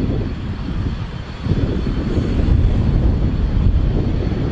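Jet engines of a four-engined airliner running on the runway: a steady rumble with a thin high whine above it, growing louder about one and a half seconds in.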